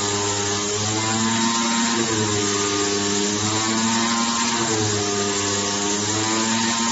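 Digital flatbed cutting machine running while cutting a tanged gasket sheet: a steady hum and hiss, with a motor whine that rises and falls in pitch every second or two as the cutting head moves over the sheet.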